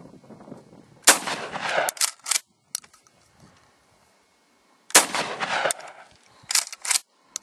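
Two shots from a Stevens 320 pump-action shotgun about four seconds apart, each with a short echo. After each shot come a few sharp clacks of the pump slide being worked to chamber the next shell.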